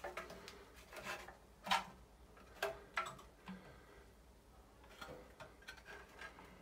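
Irregular light clicks and taps of a sheet-metal exhaust fan housing and its bracket being handled and shifted, the sharpest click a little under two seconds in.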